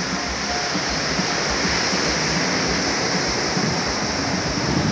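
Sea surf breaking and washing up a sandy beach, a steady rush of water.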